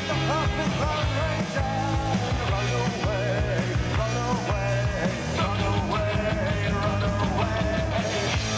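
Band music with bass and drums, a wavering, ornamented melody line on top, playing steadily throughout.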